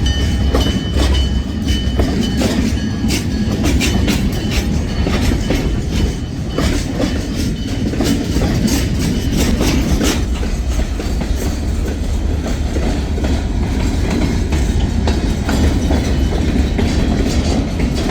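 Freight train cars rolling past close by: a steady low rumble with the wheels clicking over the rail joints in a continual clickety-clack.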